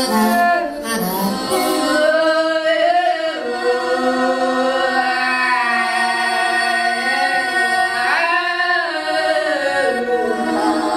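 A woman singing long, held wordless notes that slide up and down in pitch, with a rise in pitch about eight seconds in.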